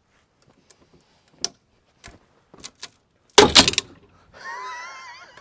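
A 2x4 creaking with small snaps, then splitting with a burst of loud cracks about three and a half seconds in as the vise jaws and lever force break it. A wavering, pitched cry of about a second follows near the end.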